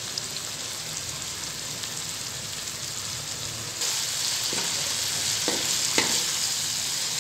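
Onions, tomatoes and green chillies sizzling in hot oil in an aluminium karahi. About four seconds in, the sizzle grows louder as a wooden spoon stirs them, and the spoon knocks against the pan three times.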